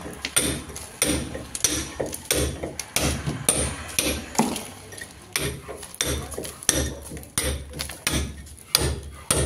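Hammer striking a steel chisel against brick, cutting a groove in the wall for electrical wiring: a steady run of sharp blows, a little under two a second.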